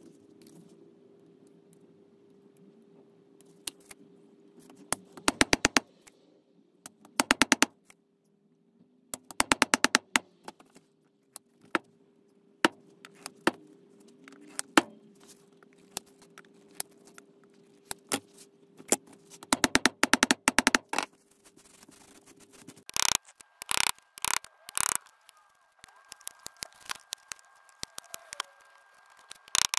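Fret installation on a guitar neck: bursts of rapid light metallic clicking and tapping as the fret wire is worked into the slots, with scattered single clicks. From about 23 s, a few louder sharp snaps as the fret ends are cut with end nippers.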